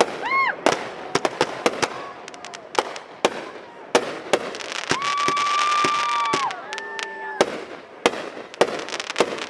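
Aerial fireworks bursting in quick, irregular succession, with sharp cracks and pops. A few drawn-out whistling tones are heard among them: a brief arching one at the start and a longer, steady one about halfway through that then drops in pitch.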